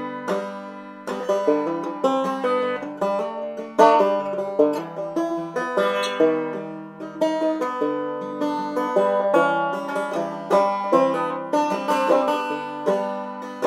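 Background music: a fast plucked banjo tune in a bluegrass style.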